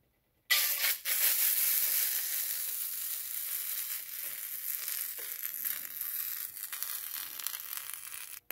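Beaten eggs sizzling as they are poured into a hot Blue Diamond ceramic nonstick frying pan with no oil in it. The sizzle starts suddenly about half a second in, is loudest at first, slowly fades, and stops abruptly near the end.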